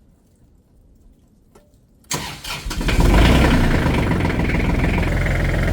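A tractor engine cranks and catches about two seconds in, then settles into running steadily.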